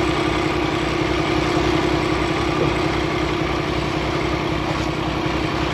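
Semi truck's diesel engine idling steadily, with an even low throb.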